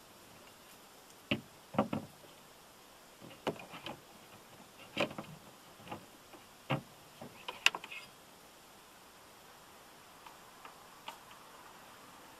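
Windshield wiper blade and arm being worked by hand, a string of sharp plastic-and-metal clicks and knocks, about a dozen, the loudest near the middle, then a few faint ticks. Heard muffled through the windshield from inside the car.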